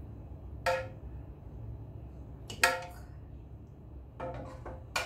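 Metal spoon clinking against cookware as sauce is spooned over a steak: a sharp ringing clink about a second in, a louder one near three seconds in, then a few lighter taps near the end.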